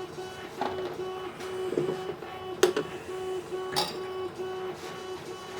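3D printer running, its stepper motors giving a steady tone that stops and restarts in short even pulses, about three a second. A few sharp clicks sound over it, about half a second, two and a half seconds and near four seconds in.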